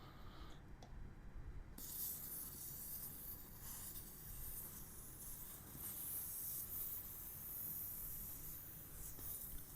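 Air hissing out of a motorcycle's rear tire through the valve stem with the valve core removed, deflating the tire. The hiss starts suddenly about two seconds in and then runs steadily.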